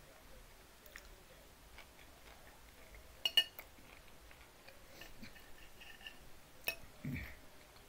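Metal fork clicking against a plate a few times while eating: one click about a second in, a sharp pair at about three and a half seconds, and another near the end, with quiet between.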